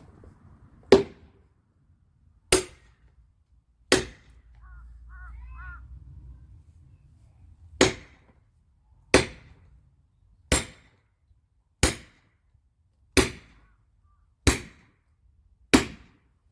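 Axe blows on firewood, ten sharp strikes in a steady rhythm about a second and a half apart, with a pause of nearly four seconds after the third.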